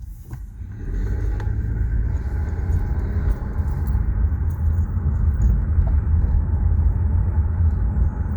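Car driving along a street: steady low rumble of engine and road noise, growing louder about a second in and then holding level.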